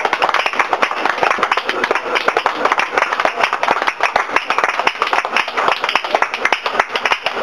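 Hand clapping, many sharp claps a second, kept up without a break.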